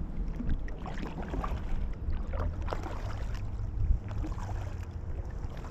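Kayak paddle strokes: the double-bladed paddle dipping and splashing in calm water, with drips, over a steady low rumble. The strongest splash comes about four seconds in.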